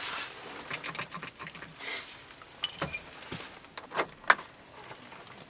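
Ignition key and key ring jangling, with a series of light clicks and rattles as a hand handles the key in the steering-column ignition switch; the sharpest click comes a little past four seconds in.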